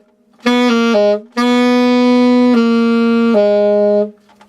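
Alto saxophone playing a chromatic descent of three notes, G sharp, G, F: first quickly, then again with the notes held longer and run together.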